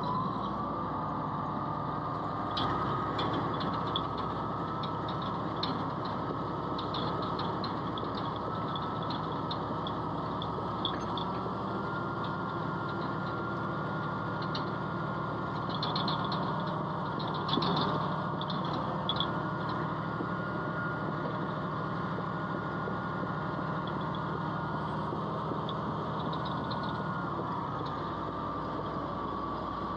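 Komatsu bulldozer's diesel engine running steadily, heard from inside the machine, with a steady high whine that rises a little about twelve seconds in and drops back near the end. Light metallic rattles come and go, most around the middle.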